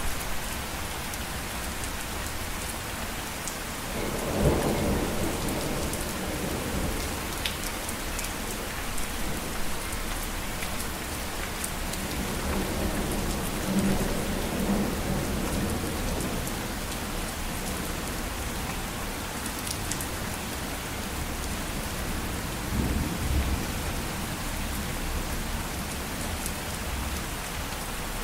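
Steady rain falling, with thunder rumbling three times: about four seconds in, around the middle, and again later on.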